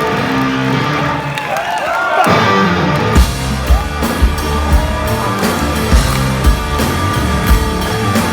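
Rock band playing live through a club PA: electric guitar and bass with sliding, bending notes, then a heavy, steady beat of about two hits a second comes in about three seconds in.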